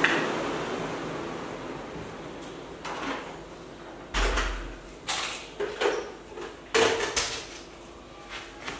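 Soft grass broom sweeping a hard floor: a string of short, irregular swishing strokes, roughly a second apart. A steady hiss fades away over the first two seconds, and a dull low thump comes about four seconds in.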